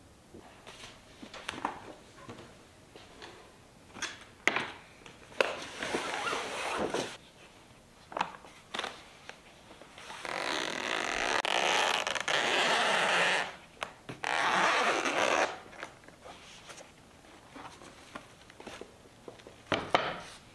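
Zipper on a padded tea-set travel case pulled open in two long strokes, after some handling clicks and rustles.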